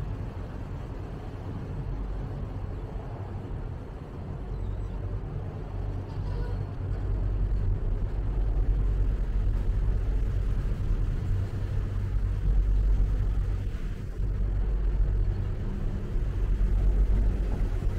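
Diesel engine of a river passenger boat running steadily, heard from on board as a low drone with water and wind noise above it; it grows louder after about seven seconds.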